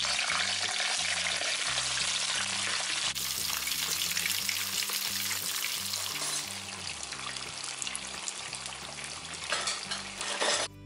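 Whole golden pomfret deep-frying in hot oil in a wok: loud, steady sizzling and crackling from the moment it hits the oil, easing somewhat after about six seconds as it starts sounding quiet, the cue to turn the fish. Faint background music sits underneath.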